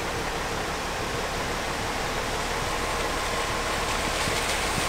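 Heavy rain pouring steadily, a dense even hiss that grows a little louder over the last couple of seconds.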